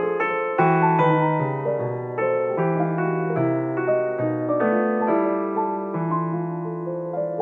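Background piano music: a melody of single notes over low bass notes that change about once a second.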